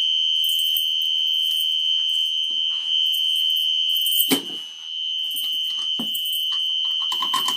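Fire alarm sounding one steady, continuous high-pitched tone, really loud. Two knocks are heard in the middle of it.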